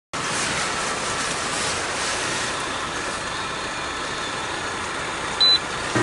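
Heavy rain falling on a tent: an even, steady hiss, with one short high beep near the end.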